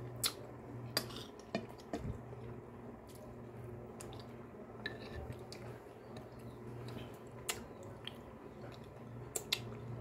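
Metal spoon clinking and scraping against a glass plate during a meal, in scattered sharp clinks, with soft eating sounds and a steady low hum underneath.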